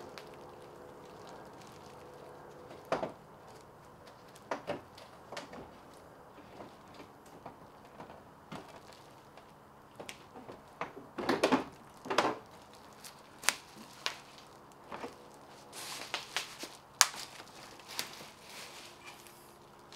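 Scattered clicks, knocks and rattles of a car's front bumper cover being worked free of its mounting pins and lifted off, busiest and loudest in the second half, over a faint steady hum.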